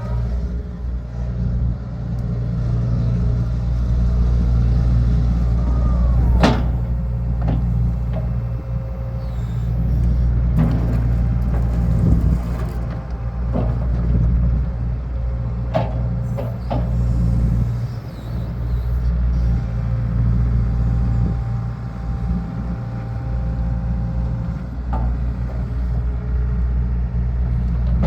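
Low, steady rumble of heavy engines, broken by a few sharp knocks or clanks.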